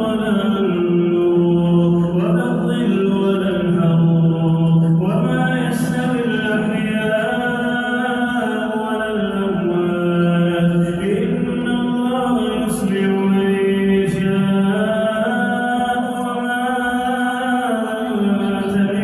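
A male reciter chanting the Quran in slow, melodic tajwid style: long held notes that glide between pitches, with short pauses between phrases.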